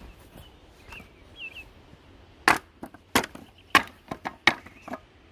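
Wooden pallet being struck with hard swung blows to knock its boards loose. About two and a half seconds in come four loud sharp wooden cracks, with lighter knocks in between, over about two and a half seconds.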